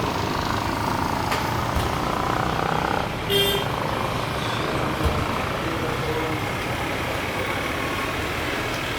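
Steady outdoor engine rumble, with a short high-pitched toot a little after three seconds in and a brief low thump about five seconds in.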